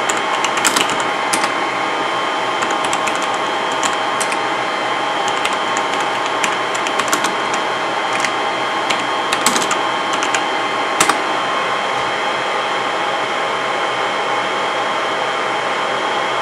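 IBM x3250 server's cooling fans running at full speed, a steady whine with several fixed tones. Computer keyboard keystrokes click over it through the first eleven seconds or so, ending with a sharper keypress.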